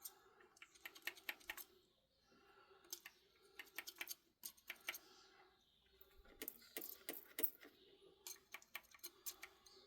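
A steel scribe picking and scraping at metal on a lathe, making faint, irregular clicks and scratches in short clusters, to clean out dirt and find the grub screws.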